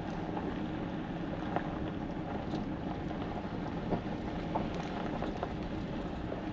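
Steady road and tyre noise of a vehicle towing a caravan slowly along a dirt track, heard from inside the cabin, with a few scattered small ticks.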